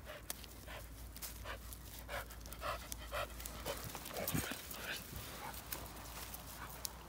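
American Staffordshire terrier panting steadily, about two breaths a second, with a brief rustling bump about four seconds in.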